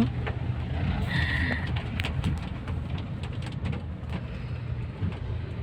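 Steady low hum of a running vehicle, with scattered light clicks and a brief high-pitched tone about a second in.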